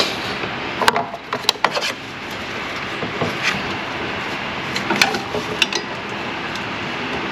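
Short clicks and clatters of tools and parts being handled while working on a truck's AC compressor and its clipped-in fittings. They come in two bunches, about a second in and again about five seconds in, over a steady background rush.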